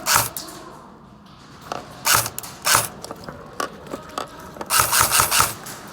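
Airsoft gun firing with a mechanical clack on each shot: a shot at the start, two more a little past halfway, then a quick string of shots near the end.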